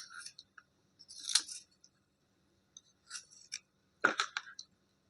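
Small pieces of slate being handled and scraped to clean off their soaked outer layers: a few short bursts of scratchy scraping and clicking, the loudest about four seconds in.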